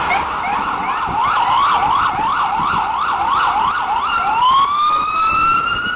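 Emergency vehicle siren on a city street, sweeping rapidly up and down about three times a second, then changing about four seconds in to a slow rising wail, over steady traffic noise.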